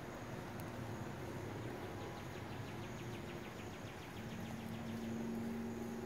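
Woodland ambience with insects: a rapid high pulsed trill, roughly ten pulses a second, lasting about two seconds from about two seconds in, and a low steady hum starting about four seconds in.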